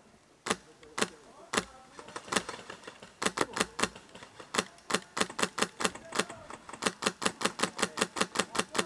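Airsoft guns firing: three single shots about half a second apart, then from about three seconds in, rapid semi-automatic shots in runs of roughly six a second.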